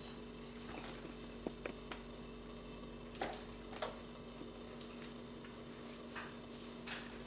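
Kitten batting and biting at a twine rope on a fabric blanket: soft short rustles and a few light ticks, over a steady low hum.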